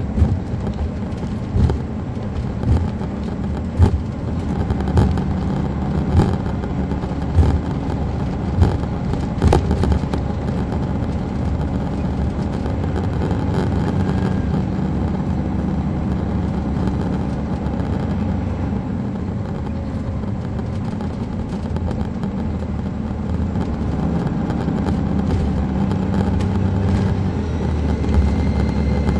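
The Caterpillar C13 diesel and drivetrain of a 2007 MCI D4500CL coach, heard from on board while under way, the engine note shifting in pitch as it drives. Sharp knocks come about once a second during the first ten seconds.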